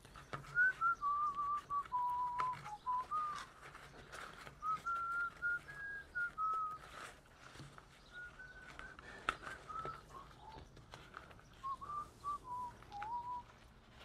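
A person whistling a slow tune, one clear note at a time stepping up and down, with short pauses between phrases. Faint clicks of cord being handled.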